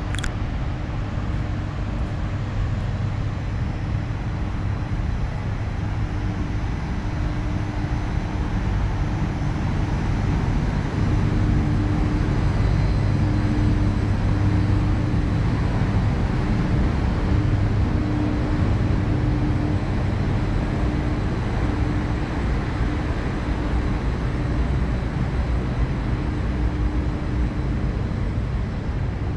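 Wind buffeting the microphone on an open high-rise rooftop deck: a steady, loud low rumble, with a thin steady hum running underneath.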